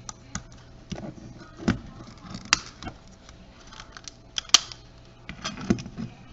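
Irregular small clicks and taps of a camcorder's plastic casing and internal parts being pried apart by hand, with one sharper click about four and a half seconds in.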